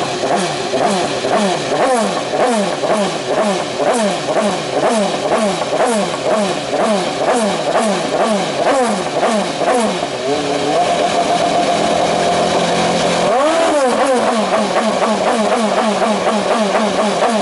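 Honda HSV-010 GT's 3.4-litre V8 race engine warming up just after being started. The throttle is blipped over and over, about twice a second. Then the revs are held steady for a few seconds, rise once sharply and settle into a steady run.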